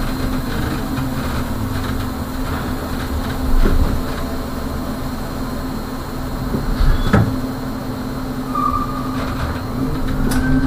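Electric trolley bus moving at low speed, a steady hum with a clear knock about seven seconds in and a short squeak near the end.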